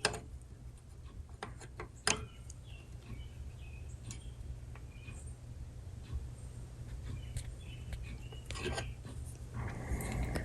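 Faint, scattered clicks and light metallic ticks of a small hand tool working on a Rock-Ola jukebox popularity-meter part, over a steady low hum. The sharpest click comes about two seconds in.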